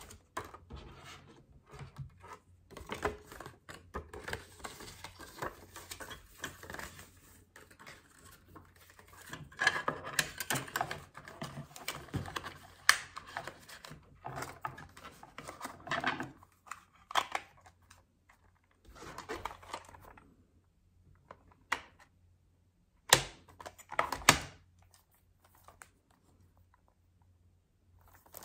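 A folded paper cassette insert rustles as it is handled, along with clear plastic cassette cases being handled. A few sharp plastic clicks stand out as the loudest sounds, about halfway through and again about three-quarters of the way through.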